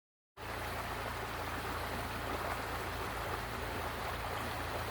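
Oak Creek flowing: a steady rush of moving stream water that starts a moment in.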